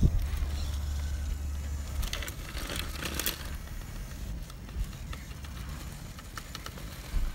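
A radio-controlled scale crawler's tyres scraping and crackling on rock as it climbs, loudest about two to three and a half seconds in, over a low rumble of wind on the microphone in the first couple of seconds.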